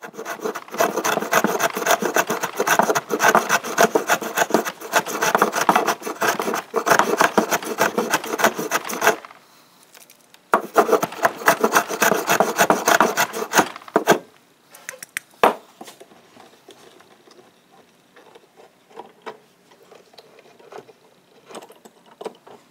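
Hand plane shaving down a block of wood in quick, repeated strokes. It stops about nine seconds in, starts again after a short pause, stops for good a few seconds later, and then there are only a few light knocks from handling the wood.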